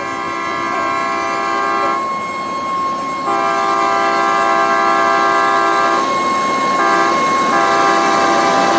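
Air horn of a Plasser V19 rail maintenance vehicle sounding a multi-note chord in blasts: one ending about two seconds in, then long, short, long. This is the pattern for a level crossing. Under the horn, the vehicle's running noise on the rails grows louder as it approaches.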